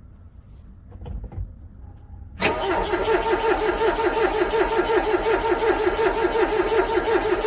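A few faint clicks, then a car's starter motor suddenly begins cranking a cold engine in an even, rapid rhythm without the engine catching. This is a struggling cold start in freezing weather.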